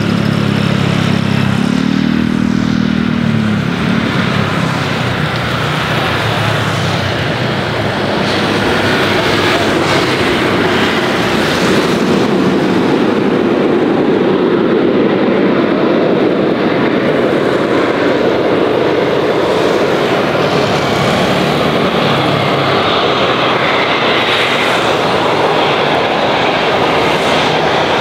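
Boeing 737-800 jet with CFM56-7B engines approaching to land, its engine roar building over several seconds and then holding steady. A smaller engine hums and revs briefly in the first few seconds.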